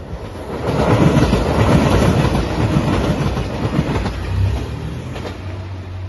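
A JR Shikoku 2700-series diesel railcar train passing at speed, its wheels clacking rapidly over the rail joints. The noise swells as the train draws level, stays loud for a few seconds, then eases off with a steady low engine hum as it moves away.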